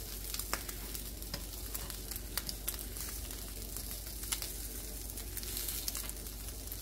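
Slices of lamb-and-beef gyro meat sizzling in a hot, unoiled pan, with scattered pops and crackles as the fat renders and the edges crisp.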